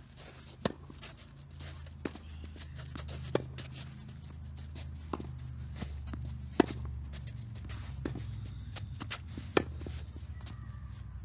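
Tennis rally on a clay court: sharp racket-on-ball hits about every one and a half seconds, with fainter ball bounces and footsteps on the clay between them, over a low steady hum.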